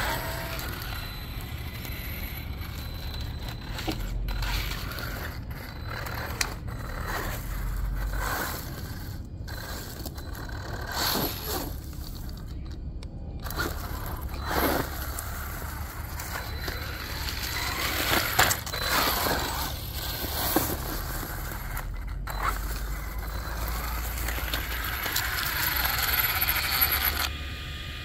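Electric RC monster truck driving over asphalt strewn with dry leaves: the tires scrape and crunch over grit and leaves, growing louder and fading as it comes and goes.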